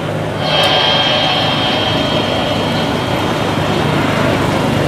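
Airbus A320's IAE V2500 turbofan engines on final approach to land: a steady jet rush, with a high, even whine coming in about half a second in.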